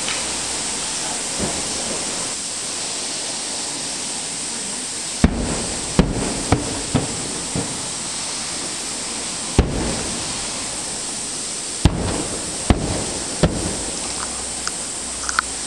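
Aerial firework shells bursting: a string of about nine sharp bangs at uneven intervals, starting about five seconds in, over a steady hiss.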